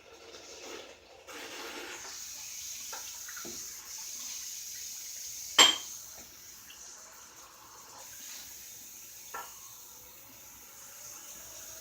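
Water running from a tap into a sink, with a sharp knock about halfway through and a softer one near the end.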